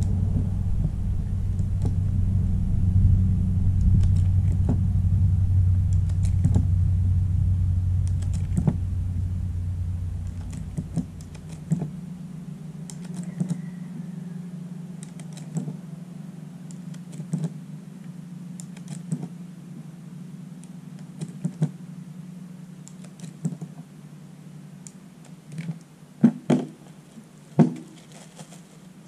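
Irregular light metallic clicks and clacks of .380 ACP cartridges being handled and pressed into Glock 25 pistol magazines, with a few sharper clacks near the end. A low steady rumble under them fades out about ten seconds in.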